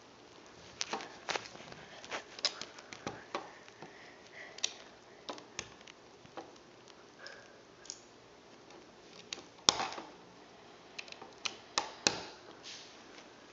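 Plastic Lego bricks clicking and clattering as they are handled and pressed together: irregular sharp clicks, the loudest about ten seconds in.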